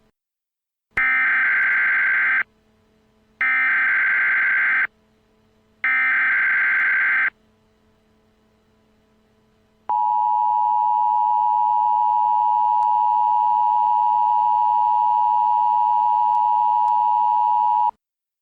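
Emergency Alert System SAME header: three identical screeches of digital data tones, each about a second and a half long and evenly spaced. About ten seconds in, the EAS attention signal follows: a steady two-tone tone held for about eight seconds and then cut off abruptly. Together they announce the emergency alert that is about to be read.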